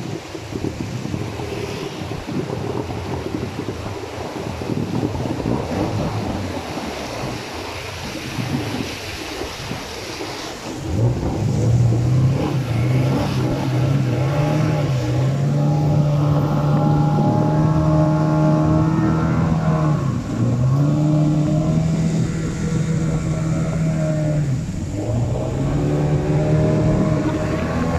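Motor longboat on a river: rushing rapids water and wind on the microphone, then about a third of the way in the boat's engine comes up loud and steady, its note dipping briefly a few times as the throttle eases and picks up again.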